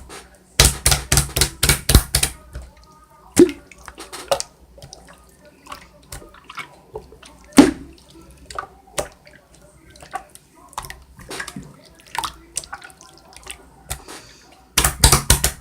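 A run of sharp clicks and knocks: a quick cluster about half a second in, scattered single knocks through the middle, and another quick cluster near the end.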